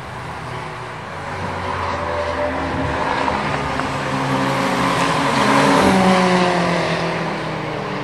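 Track cars' engines running hard at speed. The sound builds to a loudest pass about six seconds in, with the engine note falling in pitch as the car goes by.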